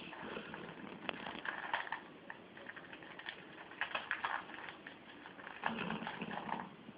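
A sleeping pet snoring, with noisy breaths about every two seconds; the last, near the end, is the strongest and has a low rumble. A few light clicks fall between the breaths.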